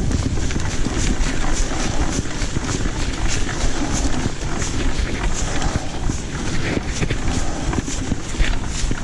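Wind buffeting the microphone over a steady low rumble, with short sharp ticks or rattles about every half second.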